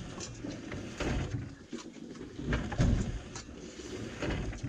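Scattered light clicks and knocks of plates, pots and utensils being handled during a meal on a wooden boat deck, with a few dull thumps, the loudest about three seconds in.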